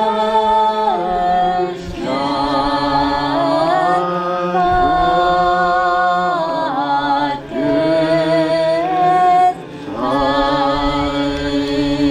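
A congregation singing unaccompanied, slow long-held notes that slide from one pitch to the next, in phrases with short breaks between them.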